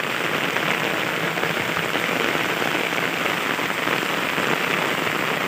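Steady rain falling on a wet asphalt road, an even patter of drops at a constant level.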